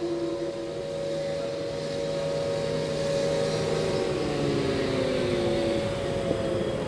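Several outdoor warning sirens still sounding at a distance, a few overlapping tones held steady and slowly falling in pitch, much softer than the nearby siren that has just stopped.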